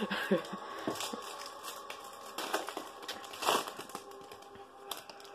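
Foil wrapper of a Topps Chrome baseball card pack crinkling and tearing as it is opened by hand, irregular crackles with a louder rustle about three and a half seconds in.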